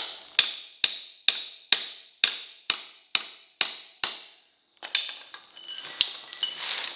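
Hammer striking metal about ten times at roughly two blows a second, each blow ringing briefly, while a motorcycle tyre is worked off its wheel rim. A clatter and scraping of tools follows, with one sharper knock about six seconds in.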